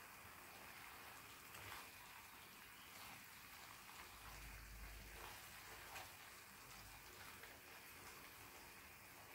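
Faint, steady sizzle of a vegetable pepper sauce simmering in a pot, with a few light ticks.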